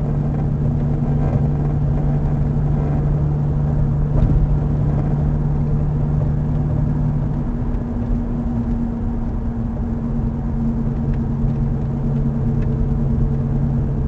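Steady droning vibration noise from the front of a 2014 Nissan Xterra while driving, heard in the cabin over road rumble. The owner found it was not coming from the engine, transmission, wheels or tires. The lower of its two hum tones drops out about halfway through and comes back a few seconds later.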